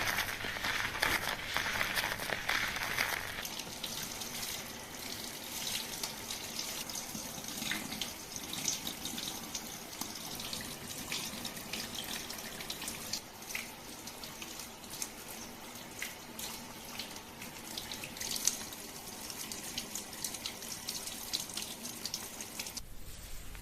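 Water running into a hair-washing basin as hair is rinsed: a steady splashing hiss, fuller for the first three seconds or so, then softer, with faint scattered clicks.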